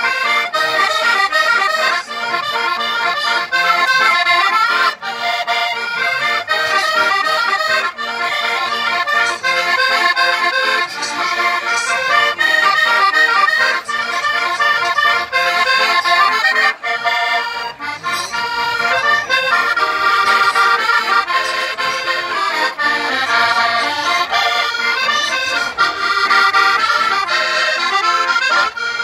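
Portuguese diatonic button accordion (Minho concertina) played solo: a fast folk-dance tune, a quick run of melody notes over steady bellows-driven chords.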